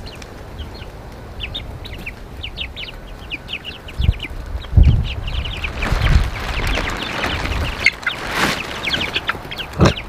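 A flock of young Red Ranger meat chickens calling with many short, high chirps and peeps, overlapping and repeated throughout. Around the middle come a few low thuds and some rustling.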